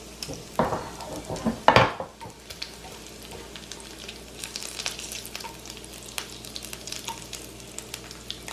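Bacon frying in its own rendered fat in a pan: a steady sizzle with scattered sharp crackling pops, the bacon well crisped. There are two louder bursts of noise about half a second and a second and a half in.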